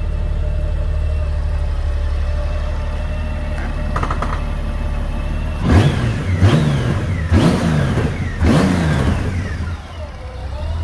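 2002 Honda Gold Wing GL1800's flat-six engine idling smoothly, then blipped four times in quick succession, each rev rising and falling back, before settling to idle again.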